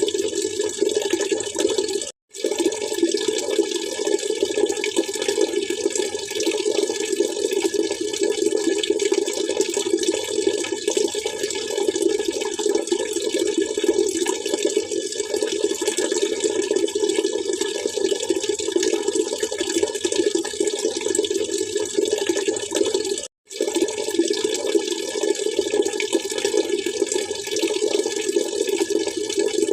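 Steady splashing, trickling water that cuts out to silence for a split second twice, about two seconds in and again about twenty-three seconds in.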